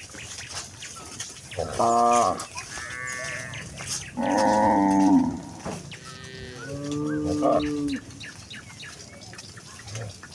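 Village cattle mooing: four calls from the herd, the loudest a few seconds in and one higher-pitched than the rest.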